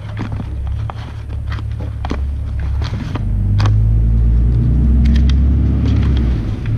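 A steady low rumble that grows louder about halfway through, with light clicks and crinkles of paper and packaging being handled.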